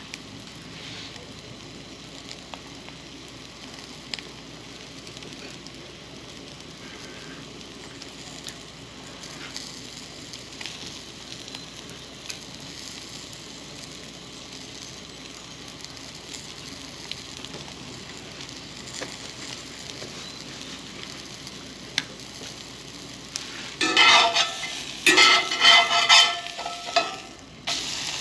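An egg sizzling steadily in a cast iron skillet over a propane camp stove's high heat, with a few sharp pops of spattering fat. Near the end a metal spatula scrapes and clatters against the pan several times as it works under the egg.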